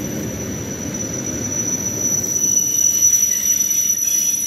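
ЭП2ДМ electric train pulling in along the platform: a rolling rumble from the wheels and running gear that thins out over the second half as the train slows to a stop, under a steady high-pitched squeal.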